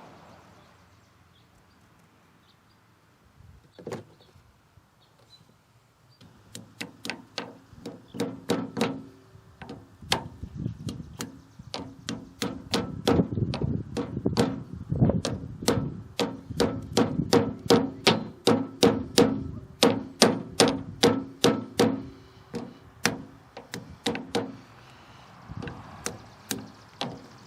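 Hammer tapping a new front oil seal into a rotary cutter's PTO gearbox housing: a single strike about four seconds in, then a long run of sharp, evenly paced taps, about two to three a second.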